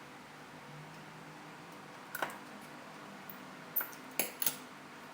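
A few small, sharp clicks and taps of small tools and phone parts being handled while an iPhone 5 is reassembled: one a little over two seconds in, then three in quick succession near the end.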